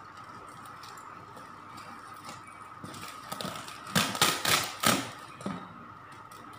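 Handling noise from cardboard box flaps and paper wrapping as a wrapped potted plant is lifted and turned, with a quick run of crackling and knocking about halfway through.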